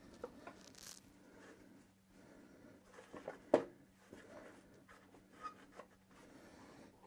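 Faint small clicks, taps and scraping from hands working a fuel hose and its fitting on an oil burner, with one sharper click a little past halfway. A faint steady low hum runs underneath.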